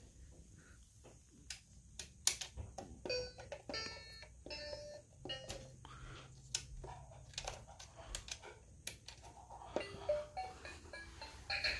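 Battery-powered light-up piano toy on the floor pad of a Skip Hop Baby's View activity center: plastic clicks as its keys are pressed, each answered by short electronic notes and chimes.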